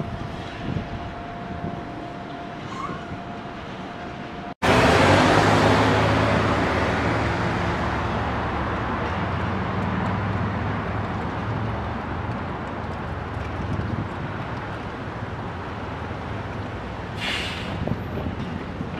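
Road traffic noise: a faint steady whine, then after a momentary dropout a sudden loud rush of vehicle noise with a low hum that slowly dies away, and a short hiss near the end.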